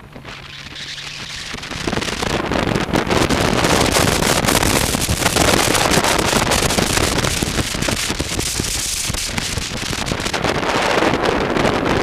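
Wind buffeting the microphone of a camera on a moving motorcycle, with the bike's engine running underneath. It is quieter for the first two seconds, then the wind noise rises sharply and stays loud and rough as the bike speeds up.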